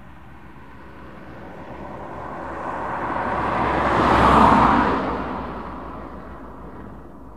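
Whoosh sound effect for an animated logo intro: a noisy rush that builds for about four seconds, peaks a little past the middle, then fades away, much like a car passing by.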